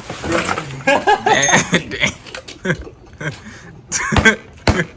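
Several young men laughing loudly, with a short exclamation, followed by a few sharp knocks just after four seconds in.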